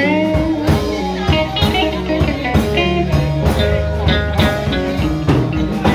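Slow blues played by a band: a lead guitar solo with bent notes over bass and drums.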